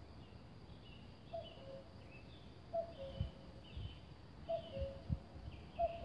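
Male common cuckoo calling its two-note falling "cuck-oo", about four times, roughly every second and a half. Fainter high chirps from other birds and a few low thumps run underneath.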